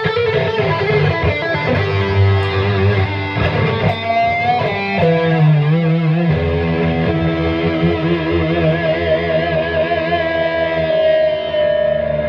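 Epiphone ES-339 semi-hollow electric guitar played loud through an amplifier: a few notes with vibrato and a pitch slide about four seconds in, then long held notes that sustain into wavering feedback tones.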